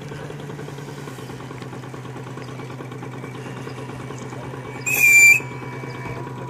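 Steady low engine-like drone of radio-controlled model boats running on a pond. About five seconds in comes a short, loud, high-pitched whistle blast of about half a second.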